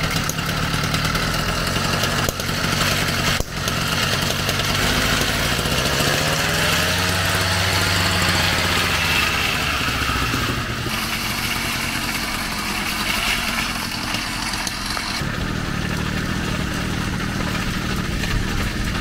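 80cc two-stroke motorized-bicycle engine on a homemade cargo trike running under way, its pitch rising and falling as the trike is ridden.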